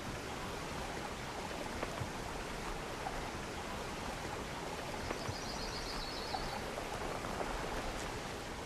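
Steady even hiss of wet-forest ambience, water- or rain-like, with a short rapid bird trill about five seconds in.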